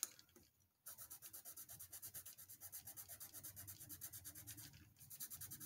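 Colored pencil scribbling on paper in quick back-and-forth strokes as a swatch is shaded in, pausing briefly near the end before going on.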